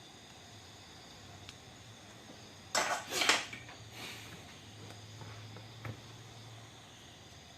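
Small metal tools handled on a workbench: two loud, brief clattering scrapes about three seconds in, then a lighter knock and a single click. Insects chirp faintly and steadily behind.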